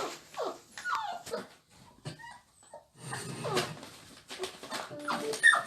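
A dog whining, in several short cries that fall in pitch.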